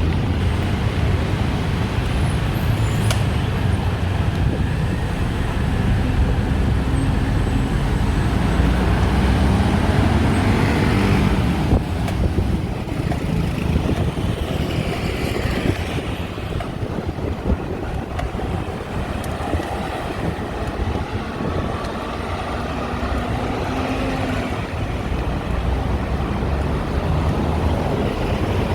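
Busy city road traffic: cars, trucks and buses running past in a steady loud din, with engine drones coming and going as vehicles pass.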